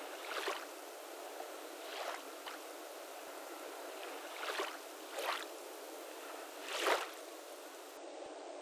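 Small waves lapping faintly on a sandy shore: a steady soft hiss with a gentle wash swelling and fading every second or two.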